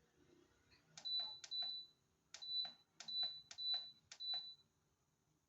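Bosch electric pressure cooker control panel beeping as its buttons are pressed: about six short, high beeps, each with the click of a button press, as the cooking time is adjusted.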